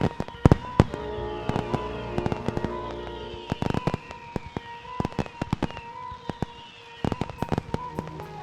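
Fireworks going off in rapid sharp bangs and crackles, over music with held notes and a repeated falling high tone.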